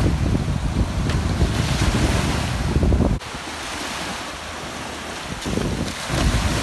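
Small ocean waves breaking and washing up the sand at the shoreline, with wind buffeting the microphone. The low wind rumble drops away suddenly about three seconds in and comes back near the end.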